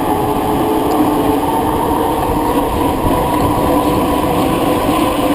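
Steady rushing wind and road noise of a fast descent, with a faint hum that rises slowly in pitch.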